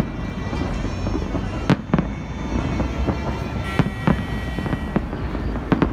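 Aerial fireworks bursting overhead: several sharp bangs at uneven intervals over a steady background of street noise.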